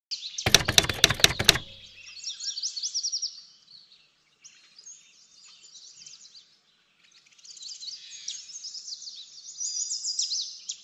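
Small birds chirping in many quick, overlapping calls that sweep up and down, fading out briefly twice along the way. About half a second in comes a rapid run of sharp clicks lasting about a second.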